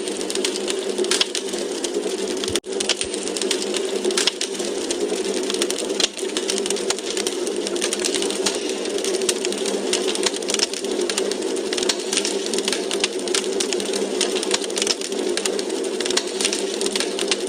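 Wood fire crackling in a fireplace: dense, irregular snaps and pops over a steady hiss, with a brief dropout about two and a half seconds in.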